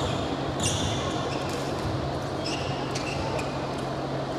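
Several short, high squeaks of sneakers on a court floor during play, over the steady hum and murmur of an indoor hall.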